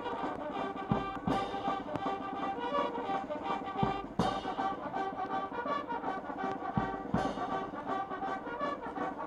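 A massed squad of about eighteen military bugles playing a bugle call in unison, the notes changing in steps, with a drum team's occasional beats underneath.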